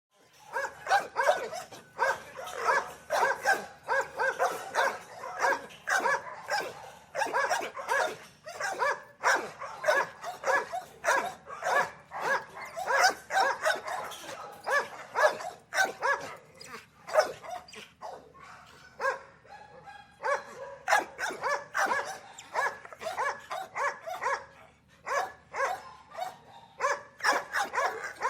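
Dogs in a small outdoor kennel barking, the barks coming thick and fast and overlapping, with a brief thinner spell a little past the middle.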